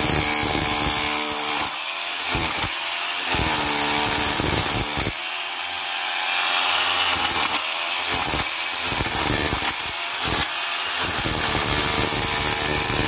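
Bosch GBH 2-20 rotary hammer driving a flat chisel bit into a brick wall's mortar joint, chipping out a groove, with brief pauses between runs.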